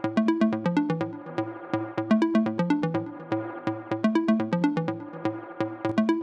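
Electronic background music with a steady beat and short repeating synthesizer notes.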